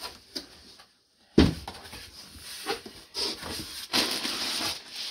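Packaging rustling and crinkling as a garment is pulled out of a cardboard box, starting with a sudden thump about a second and a half in.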